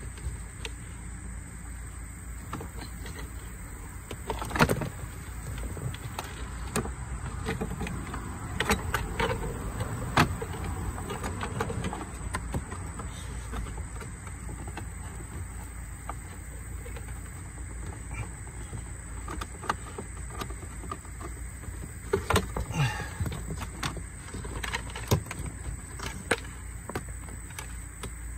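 Scattered clicks, rustles and knocks of a wire being pushed behind plastic car interior trim, with a sharp knock about five seconds in and bunches of clicks later on, over a steady low hum.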